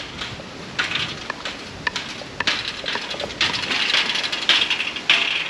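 Irregular metallic clicking and rattling of galvanised sheep hurdles, with the shuffling of hooves on wet ground, as a flock of sheep mills about in the pen.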